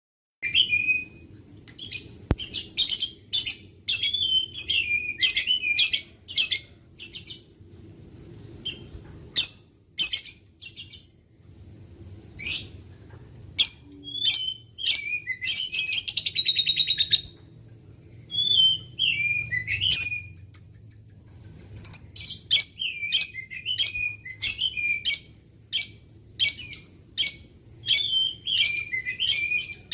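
Blue-mutation lovebird chirping: short, sharp, high calls in quick runs, with a fast rattling trill a little past the middle.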